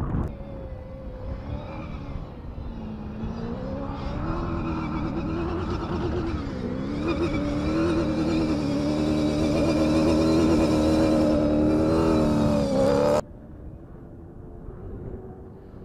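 Toyota Hilux Dakar rally car's V8 engine driving hard through sand, its pitch rising and falling with the throttle and growing louder as it comes closer. About thirteen seconds in the sound cuts off abruptly to a much fainter engine and wind on the microphone.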